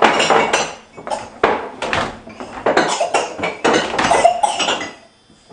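Dishes and silverware clattering as a dishwasher is unloaded: a quick run of clinks and knocks that stops shortly before the end.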